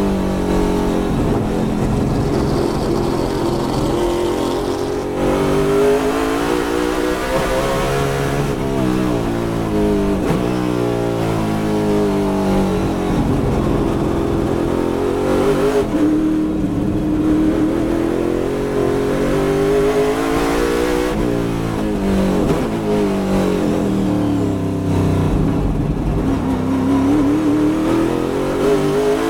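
Mustang race car's V8 engine heard from inside the cockpit at racing speed. The revs fall and rise repeatedly with breaks at the gear changes as the car brakes into corners and accelerates out of them.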